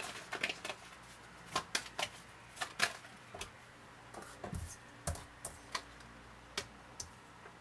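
Tarot deck being shuffled by hand: irregular sharp card clicks and flicks, with two dull knocks about halfway through.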